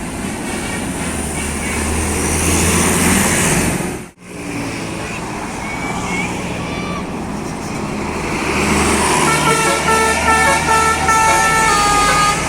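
Heavy vehicle engine and road noise, cut by a brief dropout about four seconds in. From about nine seconds in, a bus's telolet horn, the multi-tone musical air horn of Indonesian buses, plays a quick tune of several tones sounding together and stepping from note to note.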